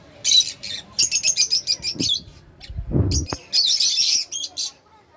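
Lovebirds chirping in repeated bursts of rapid, high-pitched chirps, with a short low rumble about three seconds in.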